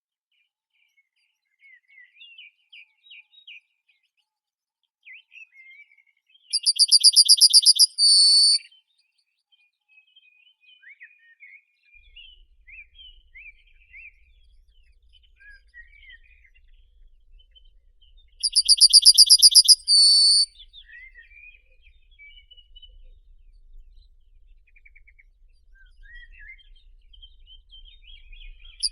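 Birdsong: one bird gives a loud, fast trill of high repeated notes lasting about two seconds, ending in a short separate note. It comes twice, about twelve seconds apart, and starts again at the very end. Faint, scattered chirps and short whistles of other birds run underneath.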